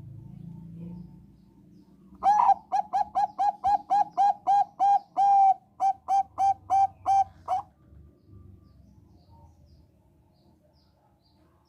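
Zebra dove (Thai 'Bangkok' perkutut) singing: starting about two seconds in, a fast, even run of about twenty short, clear coos, about four a second. There is a brief break partway through, and then a few final notes.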